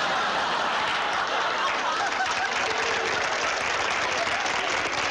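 Studio audience laughing and applauding in one steady wash of sound.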